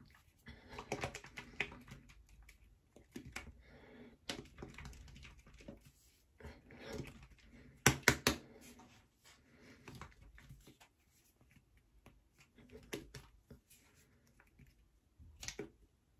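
Plastic applicator bottle of hair dye being shaken and handled to mix the colour with the developer: faint, scattered clicks and taps, with three sharp knocks close together about eight seconds in.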